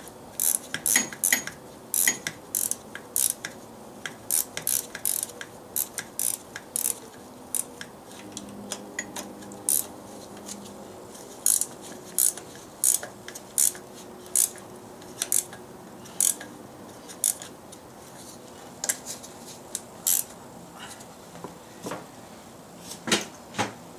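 Ratchet wrench clicking in many short, irregular runs as the valve cover nuts are tightened down, with light metal clinks of the tool.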